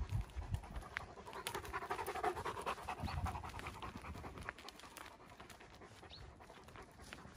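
A dog panting, loudest for a couple of seconds near the start, then fainter.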